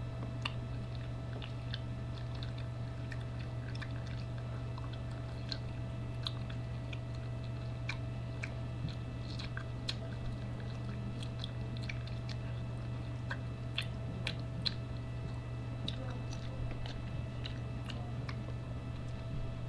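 A person chewing food close to the microphone, with many small, irregular mouth clicks, over a steady low electrical hum.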